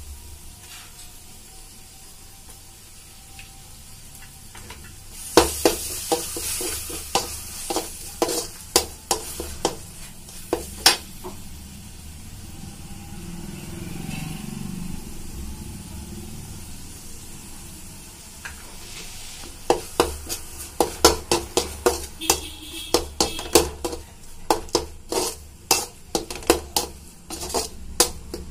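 A metal perforated spatula stirs and scrapes a spice-and-vegetable masala sizzling in oil in an aluminium kadai, with repeated sharp clinks of the spatula against the pan. About halfway through, chopped cabbage is tipped in, and it is then stirred briskly with a quick run of clatter near the end.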